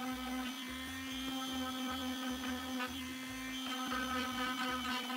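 Electric palm sheet sander running steadily, its pad sanding a small curved wooden piece, with an even motor hum.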